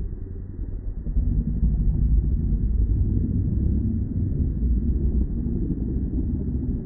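Lions growling and snarling as a male lion and lionesses fight, a deep continuous growl that gets louder about a second in.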